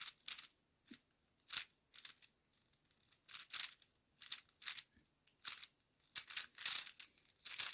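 Irregular light plastic clicks and rattles, about a dozen short ones, as a plastic twisty puzzle cube is handled.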